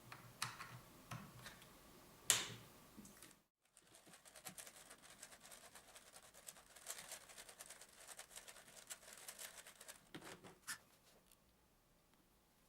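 3D-printed Rubik's cube robot's servos turning and flipping a Rubik's cube, giving faint plastic clicks and ticks. There is a sharper click about two seconds in, then a dense run of rapid clicking that stops a couple of seconds before the end.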